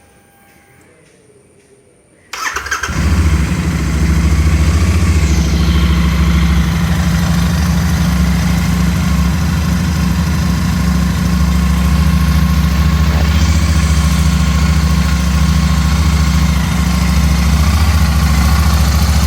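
Royal Enfield Interceptor 650 parallel-twin engine starting about two seconds in, then idling steadily. It runs without the whistle that came from its faulty fuel pump, now replaced.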